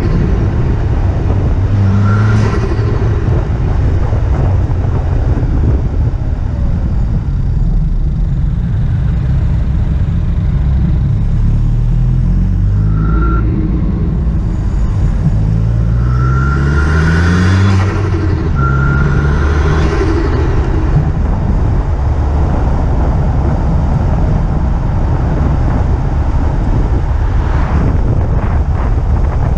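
Turbocharged car engine pulling hard through the gears over loud, steady road noise. Its pitch rises in several pulls, and short turbo whooshes come at the gear changes and throttle lifts, where the turbo flutters on lift-off.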